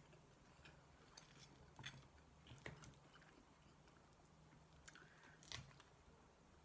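Faint sounds of someone eating chilli cheese fries: quiet chewing with a few scattered soft clicks.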